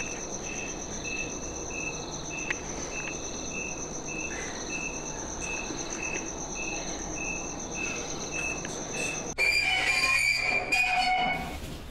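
Crickets chirping: a steady high trill, with a second, lower chirp repeating about twice a second. About nine seconds in this cuts off suddenly and a louder, different sound with held tones takes over.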